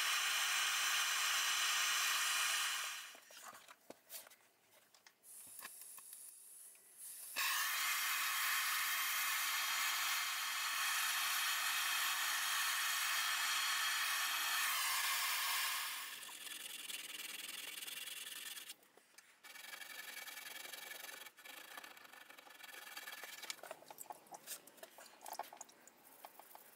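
A hand-held gas blowtorch hisses steadily as it heats a small carving-knife blade for hardening. The hiss cuts out about three seconds in, comes back loud about seven seconds in, and drops near the middle. Near the end come short rubbing strokes of wet-and-dry sandpaper on the steel blade.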